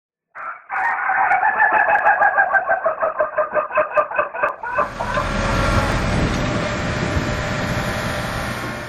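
A rooster crowing: one long crow broken into rapid pulses, about five a second. Just over halfway through it cuts off suddenly and gives way to the steady low rumble of a padfoot compaction roller's engine running.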